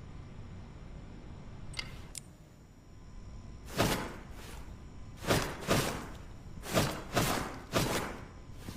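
A hatchet swung hard through the air, about eight quick swooshes coming in pairs over the second half, after a quieter start with two faint clicks.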